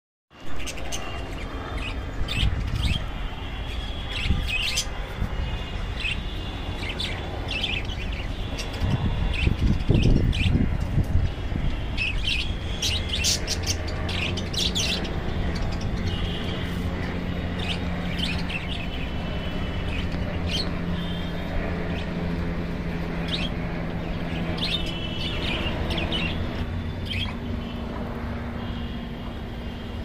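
Budgerigar chirping in short, scattered calls over a steady low hum.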